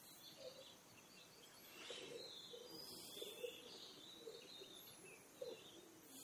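Near silence with faint birds calling in the background: scattered high chirps and short, lower repeated notes.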